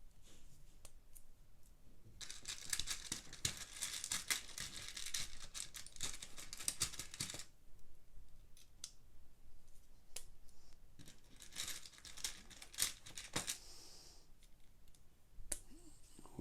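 Crinkling and rustling of plastic Lego parts bags with small plastic clicks, in two stretches of a few seconds each.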